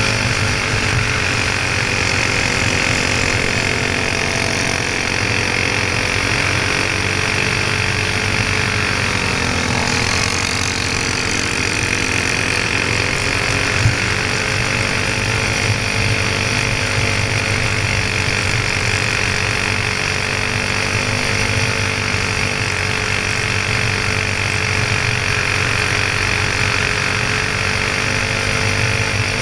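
Go-kart's single-cylinder Honda clone four-stroke engine running at speed, recorded on board the kart. Its pitch dips about a third of the way through and climbs back, otherwise holding steady.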